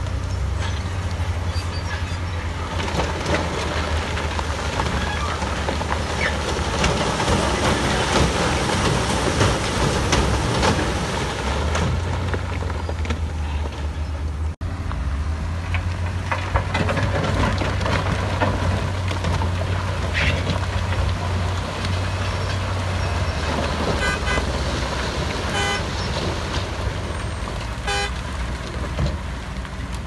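Heavy diesel earthmoving machinery running steadily with a deep engine hum under loud, rough working noise, which cuts out for an instant about halfway. Near the end come a few short horn toots.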